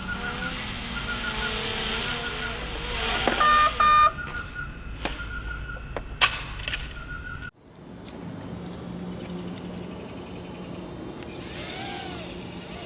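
Insects chirping in a steady pulsed high trill, typical of crickets at night. Two loud, short electronic beeps sound about three and a half seconds in, and a sharp click follows a couple of seconds later. The sound changes abruptly halfway through.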